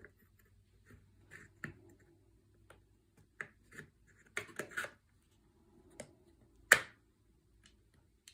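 Small clicks and scrapes of metal gun parts and a screw being handled while a pistol grip adapter is fitted to a rifle's lower, with a cluster of clicks partway through and one sharper knock about two-thirds of the way in.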